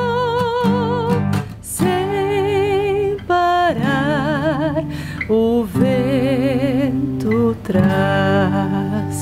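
A woman singing live over a strummed acoustic guitar, her held notes wavering with vibrato in phrases broken by short breaths.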